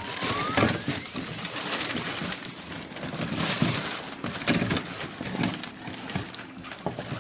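Claw crane machine sounds: a rising electronic tone that ends about a second in, then a busy clatter of short clicks and knocks.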